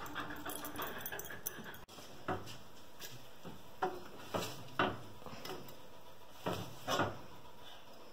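A spatula scraping and knocking against a baking sheet as baked potato pieces are lifted off, about seven short separate scrapes and clacks.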